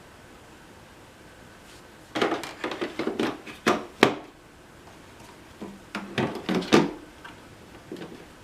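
Plastic parts of an Electrolux UltraFlex canister vacuum being handled, with the motor off: a quick run of clicks and knocks about two seconds in, and another about six seconds in.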